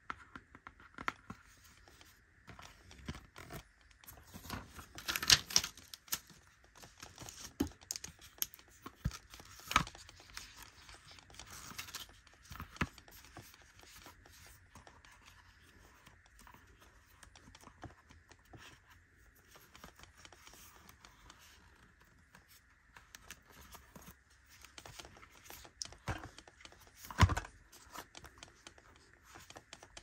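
Hands handling and tapping makeup items and packaging: an ornate plastic eyeshadow palette, a spool of lace trim and a glossy card. Scattered taps, clicks, scratches and rustles, with sharper knocks about five seconds in and near the end.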